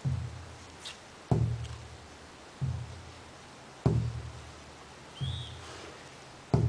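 Large drum beaten slowly and steadily, one deep booming stroke about every 1.25 seconds, the strokes alternating louder and softer.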